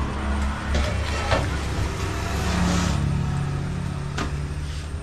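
A motor vehicle engine running with a steady low hum, and two sharp clicks, one about a second in and one near the end.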